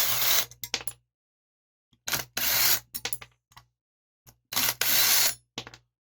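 Cordless drill-driver spinning screws out of a small engine's housing in three short bursts, with a few small clicks between.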